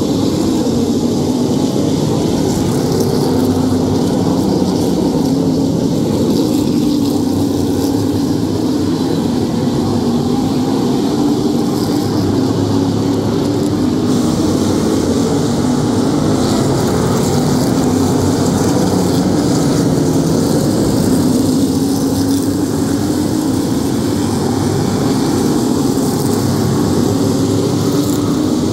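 A field of Modified race cars running together at a steady, moderate pace, their engines making a continuous drone without hard revving, as the cars circle in single file under caution.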